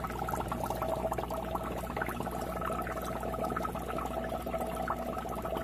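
Air bubbling up through the water inside a floating SURF4 algae scrubber, driven by its air pumps: a steady fizzing, crackling gurgle. A steady hum runs underneath.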